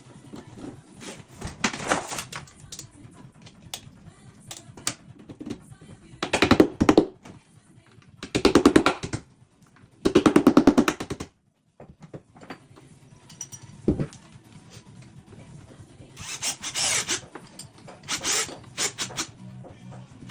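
Power drill boring the bracket holes for a radiator into the wall, in five short bursts of about a second each, with knocks and handling sounds between them.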